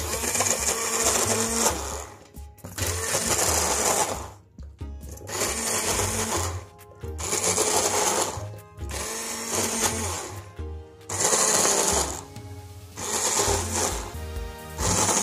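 Hand-held immersion blender run in short pulses, about seven bursts of one to two seconds each with brief pauses between, grinding a thick mixture of boiled chicken, lentils, wheat and barley porridge.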